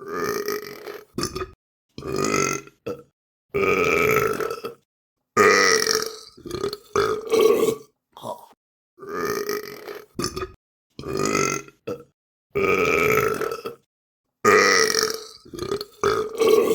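Human burps, about a dozen in a row with short silent pauses between them. They range from short belches to longer drawn-out ones with a bending, voice-like pitch.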